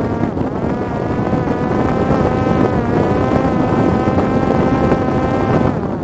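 Parrot Disco fixed-wing drone's electric motor and propeller whining steadily over wind rush, the pitch rising a little about a second in. The whine stops just before the end, leaving only wind.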